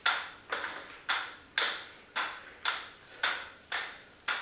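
FitRx adjustable dumbbells clicking in a steady rhythm with each forearm curl, about two sharp clicks a second. Each click rings briefly.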